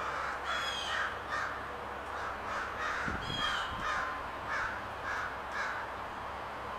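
Birds calling: a harsh call repeated steadily about twice a second, with a few higher, falling chirps from another bird, over a steady outdoor hiss.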